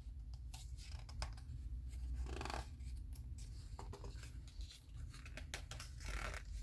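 Faint rustling and light scratching of paper with a few soft clicks: the pages of a picture book being handled and turned.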